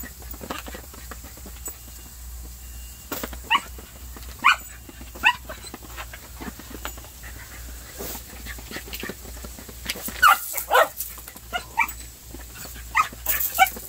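Small dog barking excitedly in play, in short sharp barks: three spaced barks a few seconds in, then a quicker run of barks over the last four seconds. Light scuffs and clicks sound between the barks.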